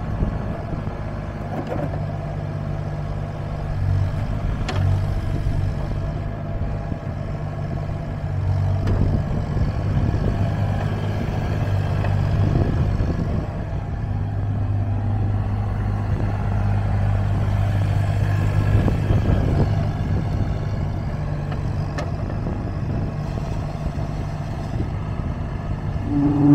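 JCB 8025 ZTS mini excavator with its diesel engine running at a steady speed, with scattered knocks and clatter over the engine note.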